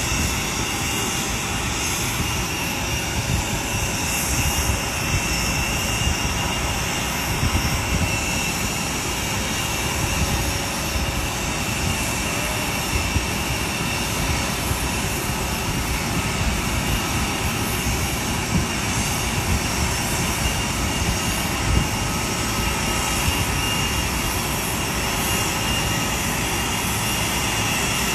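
Steady jet aircraft noise from the parked Boeing VC-25A (Air Force One): an even rumble and rush with a high whine held on one pitch throughout.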